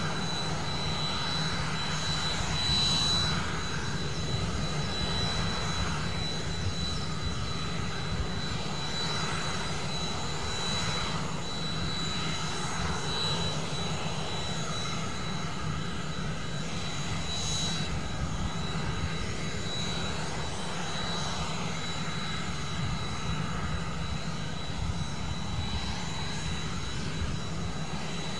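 Aérospatiale SA315B Lama helicopter's Turbomeca Artouste turboshaft running on the ground during its start-up run-up: a steady high-pitched turbine whine that holds its pitch over a low rumble from the engine and rotors.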